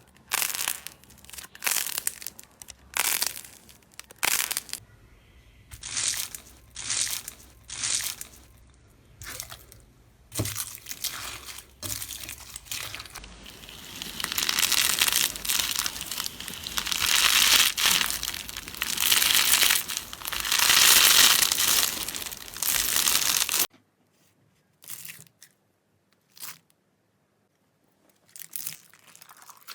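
Slime being squeezed and pressed by hand, crackling and crunching in a series of short squishes. About halfway through it turns into a long unbroken run of crackling that cuts off sharply, leaving only a few faint crackles.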